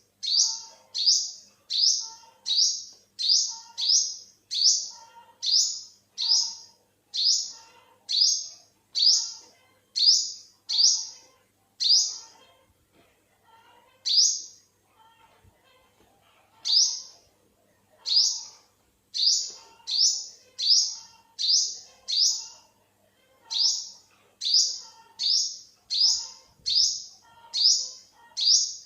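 Olive-backed sunbird giving one short, sharp, high call note over and over, about two a second, with a pause of a few seconds about halfway through.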